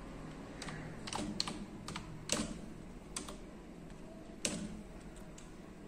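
Computer keyboard being typed on slowly: a dozen or so single key clicks at uneven intervals.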